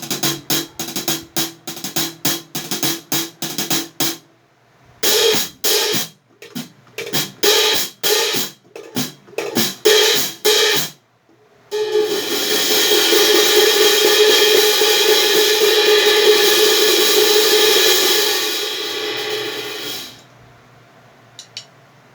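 A pair of 17-inch Heartbeat Raw series hi-hat cymbals being struck. First comes a run of quick closed strokes, about four a second. After a short pause, a looser pattern of strokes follows for several seconds. Then comes one long open wash that rings for about eight seconds before it stops.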